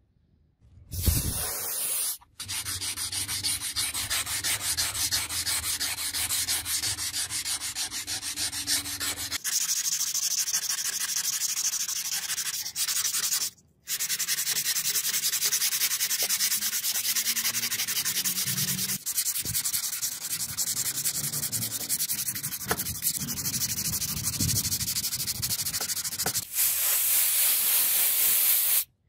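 Sandpaper wrapped around a block rubbed back and forth along a steel knife blade made from a bearing: a continuous scratchy sanding sound, with a couple of brief breaks, as the blade is polished.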